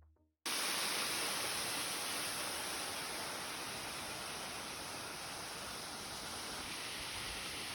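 Steady rushing of a waterfall, starting abruptly about half a second in.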